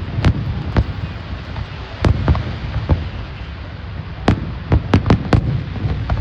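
Fireworks going off: sharp bangs at irregular intervals, with a quick run of several bangs about four to five seconds in, over a steady low rumble.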